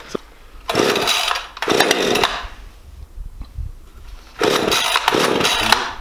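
Husqvarna 550 XP Mark II two-stroke chainsaw being pull-started from new: four short pulls on the starter cord, in two pairs, each a brief rasping burst of the engine turning over. It does not keep running between pulls.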